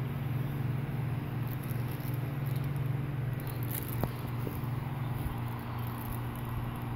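A steady low mechanical hum, like a motor or engine running, with a faint even hiss above it.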